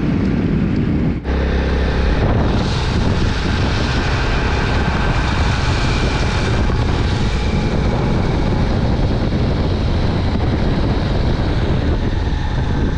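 Wind buffeting the microphone over the steady drone of a moving vehicle, with a brief break about a second in.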